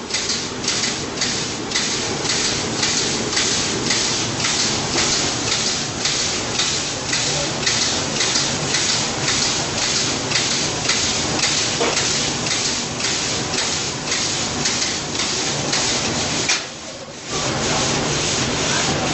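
Automatic fried-rice machine working a steel wok, its metal stirring arm scraping and knocking in the wok about twice a second over the steady rush of the gas burner. The strokes stop briefly near the end, then start again.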